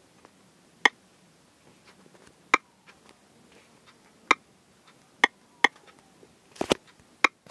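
Typing on a smartphone's on-screen keyboard: about seven short, sharp clicks at uneven intervals, one for each key tap.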